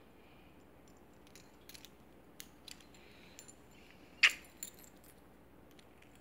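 Light clinks and jingles of a metal dog tag swinging on a collar, scattered over a few seconds, with one louder sharp click a little after four seconds in.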